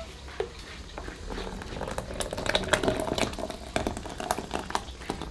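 Stirring and bubbling in a cooking pot: quick irregular clicks and taps, busiest in the second half.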